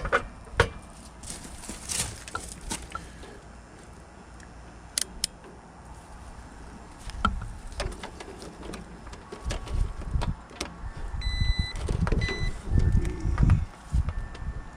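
Scattered clicks, taps and knocks from hands working tools and parts, with low thumping and handling noise in the last few seconds. A short electronic beep sounds about eleven seconds in.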